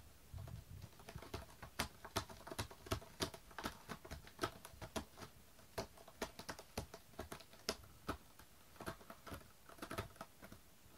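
A cat with its head down at a corrugated-cardboard scratch pad, making an irregular run of sharp, dry clicks and crunches, several a second.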